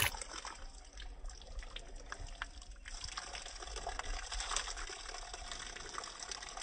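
Water running from an outdoor tap in a thin stream and splattering onto the stone below, with irregular small splashes.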